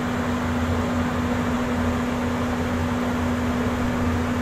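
Steady hum of a ship's machinery running: a constant low drone with a held mid-low tone under an even hiss.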